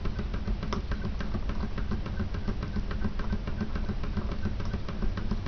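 Home-built model Robinson hot-air engine running steadily, its linkage and rocker levers clicking in a quick even rhythm over a low hum. It is running fairly well despite coolant getting inside it and some workmanship its builder is unhappy with.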